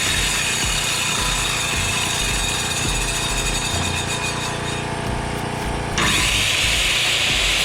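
A power tool running steadily, its sound changing abruptly and getting louder about six seconds in.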